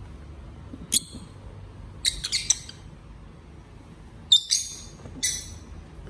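Rosy-faced lovebirds giving short, shrill chirps: one about a second in, a quick run of several around two seconds, and more after four seconds.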